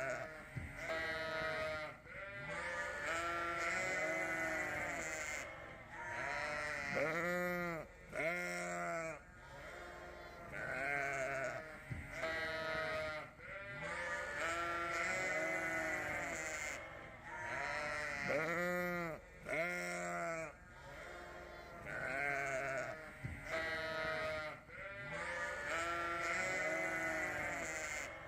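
A flock of sheep bleating, many calls overlapping one after another with hardly a pause.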